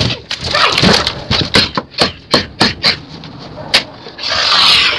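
A rubber training blade and hands knocking, slapping and scraping against a wooden board in a mock knife fight: about ten sharp hits in four seconds, with scuffling in between. Near the end comes a loud rushing rustle.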